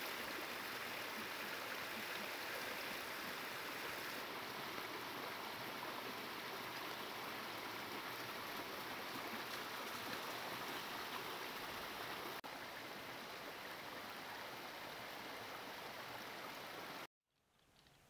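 Shallow mountain stream running over rocks: a steady rush of water that cuts off abruptly near the end.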